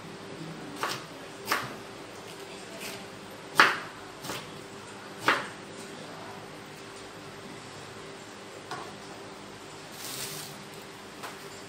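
Kitchen knife knocking on a wooden cutting board while dicing soft pieces: a string of sharp, irregular taps, thicker in the first half and sparser later. A short scraping brush near the end comes as the cut pieces are swept off the board.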